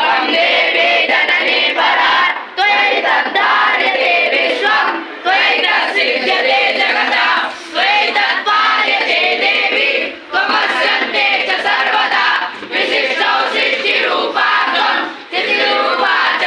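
A group of young Vedic students chanting Vedic mantras in unison, phrase after phrase, with short breaks for breath every two to three seconds.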